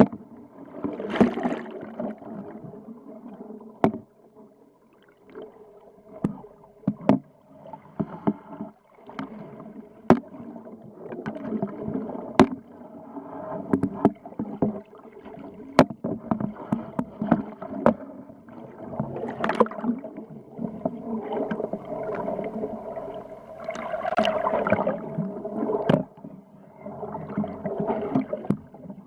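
Underwater sound picked up through a camera housing: water swirling and gurgling, a steady low hum, and frequent sharp clicks and knocks on the housing.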